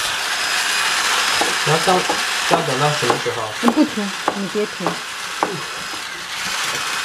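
Spatula stirring a thick egg-yolk and mascarpone cream in a glass bowl, over the steady whir of a small handheld electric whisk beating eggs. The whir eases off about six seconds in, and a few short squeaky chirps come between about one and a half and five and a half seconds in.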